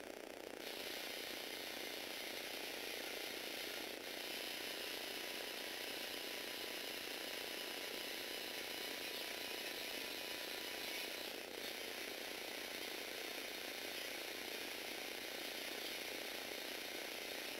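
Electric motors and plastic gears of a motorised Lego Technic arm whirring steadily as they drive it, starting about a second in, with brief changes near 4 and 11 seconds.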